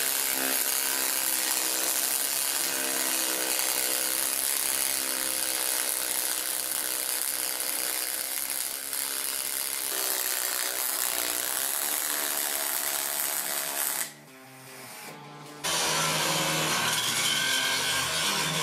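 MIG welding arc on aluminum, a steady crackling hiss and buzz. It drops away briefly near the end, and then an angle grinder with a flap disc runs against an aluminum weld seam, grinding it down.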